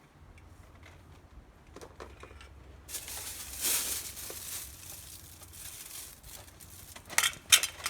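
A bag being handled and packed, crinkling and rustling from about three seconds in, with a few sharp, loud crinkles near the end.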